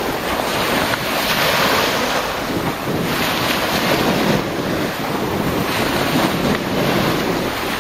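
Small surf waves breaking and washing up the shoreline, swelling and easing every second or so, with wind buffeting the microphone.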